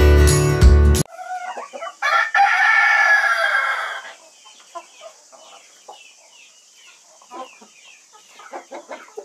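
Intro music cuts off about a second in. Then a rooster crows once, loud and about two seconds long, followed by a run of quiet, short clucks from Spanish white-faced chickens.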